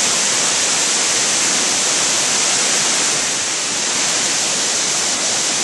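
Amicalola Falls cascading down steep rock ledges: a loud, steady rush of falling water.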